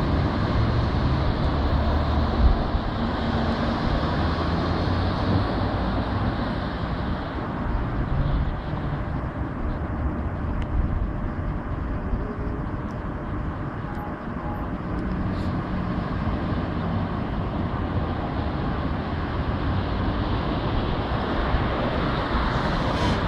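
Steady road traffic noise: cars running and passing through a junction, a continuous low rumble with no single standout event.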